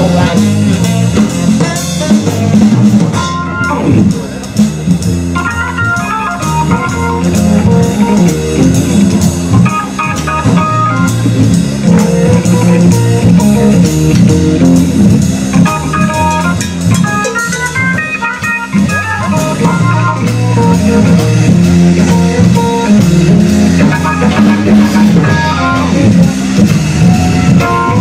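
Small live band playing through a PA: drum kit keeping a steady beat under bass, electric guitar and an electronic keyboard with an organ sound, with melodic runs coming and going.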